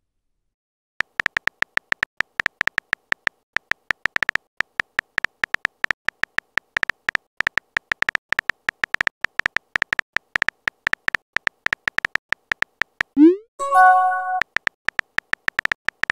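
Chat-app keyboard sound effect: a fast, uneven run of short electronic clicks as a message is typed out letter by letter, starting about a second in. Near the end comes a rising swoop and a short chime as the message is sent, then the typing clicks start again.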